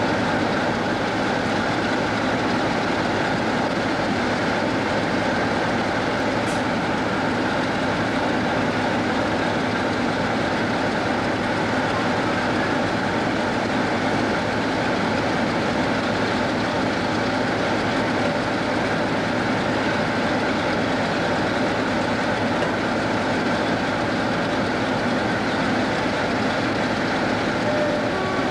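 Class 47 diesel locomotive's Sulzer twelve-cylinder engine idling at a standstill, a steady drone that does not change.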